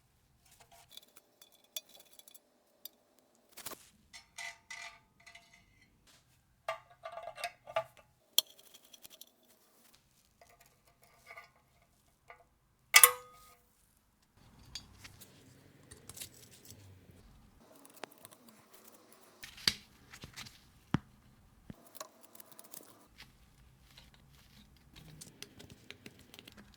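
Small metal camera parts and tools clinking and clicking against each other and the bench during disassembly: scattered sharp clicks, some ringing briefly, the loudest about halfway through, with soft rubbing and handling noise in the second half.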